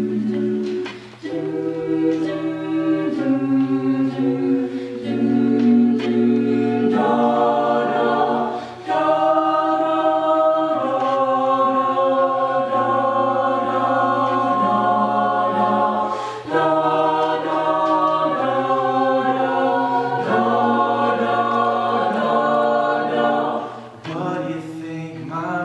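Mixed-voice a cappella group singing in close harmony, holding long chords over a low sung bass line, with short breaks between phrases every several seconds.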